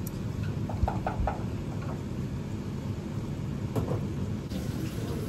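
Steady low room rumble of a restaurant dining counter, with a few short faint clinks about a second in and another near four seconds.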